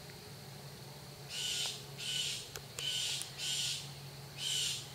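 A bird giving five short, harsh, raspy calls, one after another.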